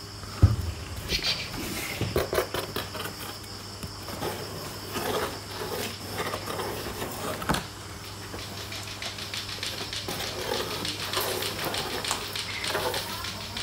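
Fingers scratching and tapping on a cardboard box with a kitten inside, in scattered strokes that thicken near the end, with one sharp thump about half a second in.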